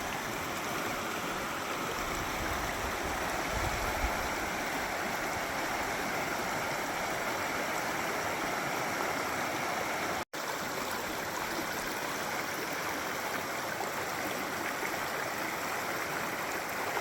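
Steady rush of a flowing mountain brook, an even, continuous noise of moving water, briefly cut off for an instant about ten seconds in.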